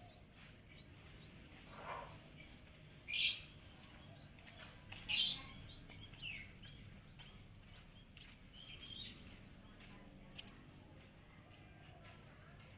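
A konin bird calling: scattered sharp, high-pitched calls, two louder ones about 3 and 5 seconds in and a quick double note near the end, with softer chirps between.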